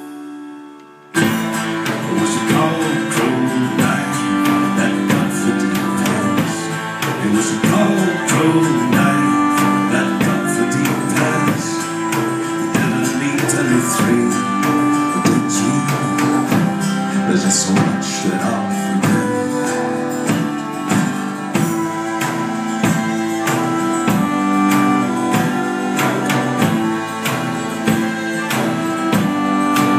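Instrumental passage of live band music: a strummed acoustic guitar with keyboard and fast shaken percussion, all coming in together about a second in after a short hush.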